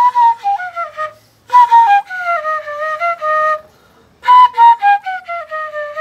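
Simple keyless transverse flute playing short ornamental fill phrases that imitate a guitar's picked accompaniment. Each phrase starts on a high note and steps down. One phrase ends about a second in, a second follows, and a third begins about four seconds in.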